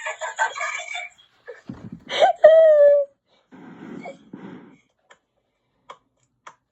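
Young girls' wordless vocal sounds: high-pitched laughing-like calls, then about two seconds in a loud held cry that falls slightly in pitch, followed by a lower, rough vocal sound.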